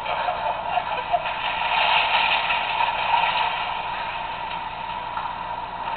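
MTH O-gauge Brooklyn PCC streetcar model running along its track with a steady running noise, strongest about two to three seconds in and easing a little after.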